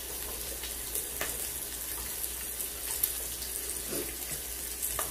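Meat sizzling on a tabletop grill plate, a steady hiss with a few light clicks.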